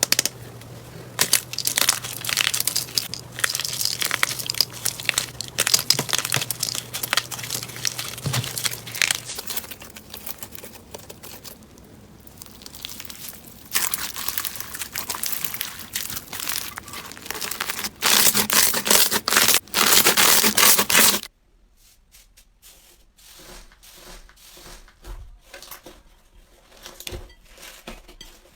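Slime being squeezed, stretched and pressed by hand, making a dense run of crackling, popping clicks. About 21 seconds in it cuts to a quieter clip with sparser pops.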